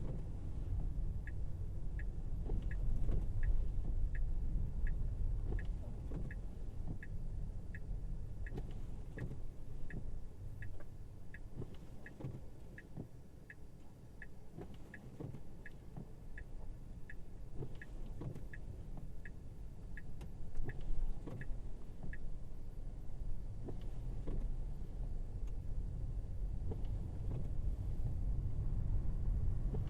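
Inside a Tesla Model Y electric SUV driving on a snowy road: steady low tyre and road rumble with occasional thumps. Over it the turn-signal indicator ticks about one and a half times a second, starting about a second in and stopping about two-thirds of the way through.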